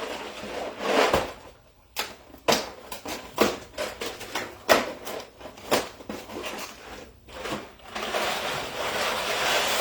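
Kitchen handling sounds: a series of separate sharp knocks and clicks of objects being set down and moved, followed over the last couple of seconds by a steady hiss.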